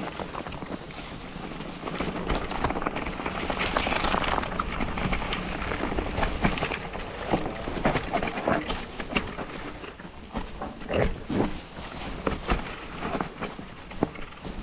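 Mountain bike tyres rolling down a dirt trail covered in dry fallen leaves: a continuous crackling rustle with many short knocks and rattles from the bike over bumps, plus wind on the microphone.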